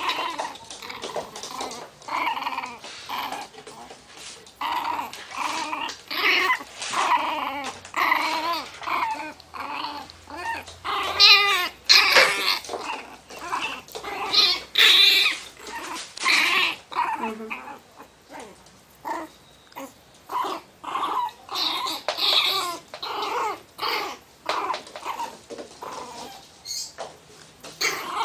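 Miniature pinscher growling and barking in short, repeated bursts, about one or two a second: an angry warning display, guarding its box.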